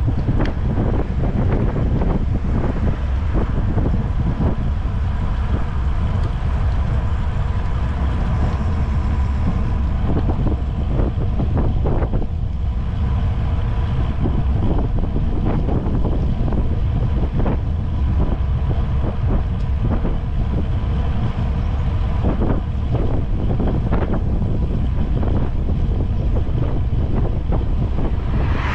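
Wind buffeting the microphone of a camera moving along with a road bicycle at riding speed: a steady low rumble broken by many irregular gusty thumps.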